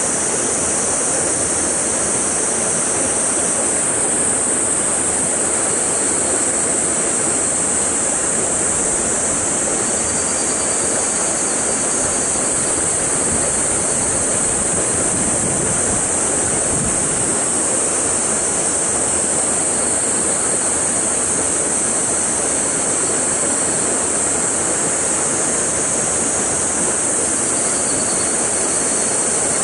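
Steady rushing of a stream flowing over a small rock cascade into a pool, an even hiss with no change.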